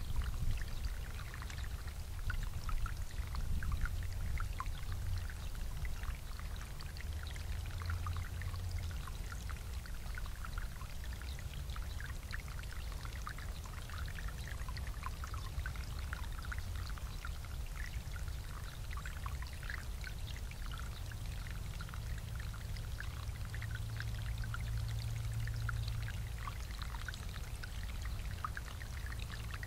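Bubbler water feature running: water welling up and splashing in a steady patter of small drips and burbles, over a steady low rumble.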